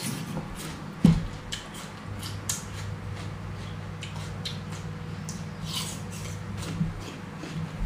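Crisp crunching of a green Ninh Thuận jujube being bitten and chewed, with a bite about a second in and a run of short crunches after it.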